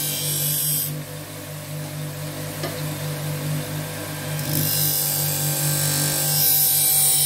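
Sharpening-wheel motor running with a steady hum while a folding knife's blade is drawn along a spinning paper wheel charged with 10-micron diamonds, giving a high hiss for about the first second, then only the hum, then the hiss again from about four and a half seconds in. These are passes alternating sides to remove the main burr.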